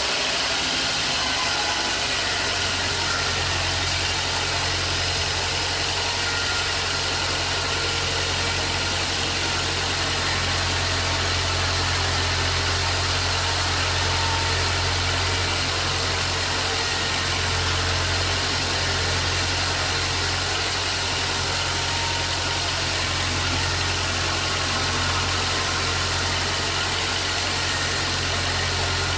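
Sawmill machinery running steadily with no cutting heard: a low engine hum under a broad steady hiss.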